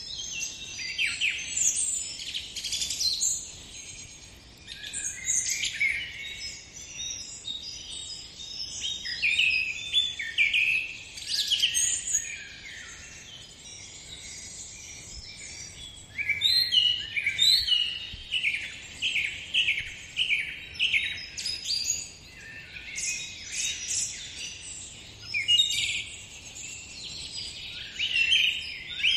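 Songbirds chirping and singing, a busy chorus of short high notes and quick downward sweeps. For several seconds past the middle one bird repeats the same note about twice a second.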